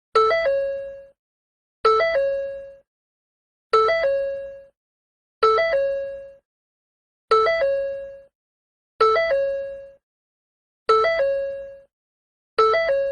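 Ford door-ajar warning chime sounding over and over, about every two seconds: each chime is a short two-note ding stepping up in pitch, then fading away. The chime is the car's signal that a door is open.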